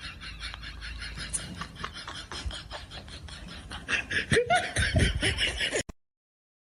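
A person laughing in quick, breathy bursts, louder from about four seconds in, then cut off abruptly into silence.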